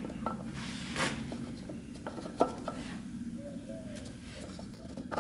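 Small clicks and knocks of hands handling parts at a motorcycle's rear wheel hub, with one sharper knock about two and a half seconds in, over a steady low hum.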